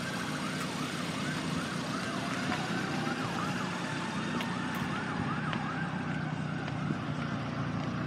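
An emergency vehicle siren in a fast up-and-down yelp, about two sweeps a second, with a slower rising and falling tone beneath it, over steady road traffic noise.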